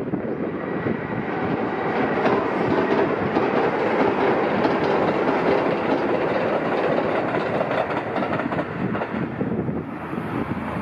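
Kintetsu electric limited express train running across a steel girder railway viaduct: a steady rumble with clattering wheels, loudest in the middle and easing off toward the end.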